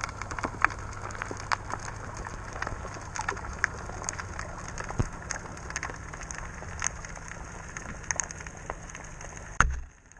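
Underwater sea ambience picked up by a GoPro Hero Session held below the surface: a steady muffled hiss and low hum with many scattered sharp clicks and crackles. Near the end comes one heavy knock, after which the sound drops to a faint hiss.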